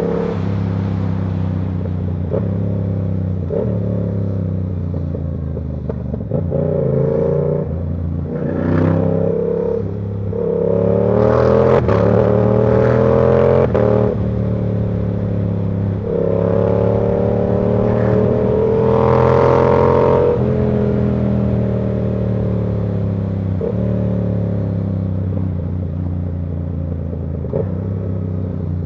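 Yamaha R7's 689 cc parallel-twin engine pulling through the gears on the move, its revs climbing and then dropping at each gearshift several times, before easing off with the pitch slowly falling near the end.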